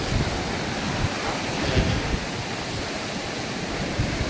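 Steady rush of sea waves washing on a beach, with wind buffeting the microphone in irregular low gusts.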